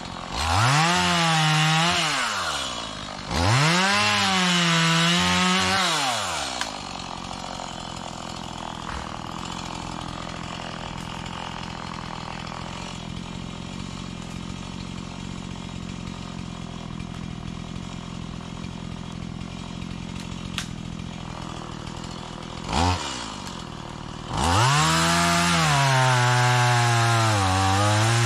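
Small Stihl chainsaw revved to full throttle in two short bursts, then idling for a long stretch. After one quick throttle blip it is held at full throttle, its pitch sagging and recovering as it cuts into wood.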